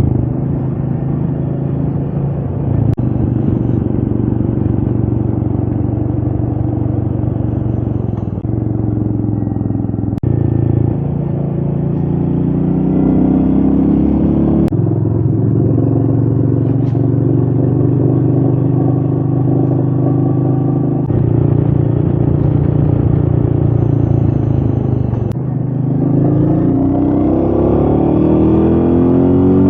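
Royal Enfield Meteor 350's single-cylinder engine running under way, its note jumping in pitch several times and climbing between the jumps, over wind noise.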